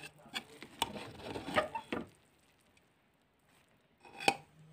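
A ladle stirring and fluffing cooked rice pulao in an aluminium pressure cooker, with soft scraping and a few clicks against the pot. It goes quiet for a moment, then one sharper knock comes about four seconds in.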